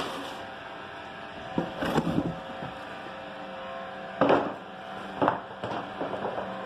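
Cardboard boxes and brown packing paper being handled, with a few short rustles and scrapes about two seconds in, around four seconds in, and near the end, over a steady hum.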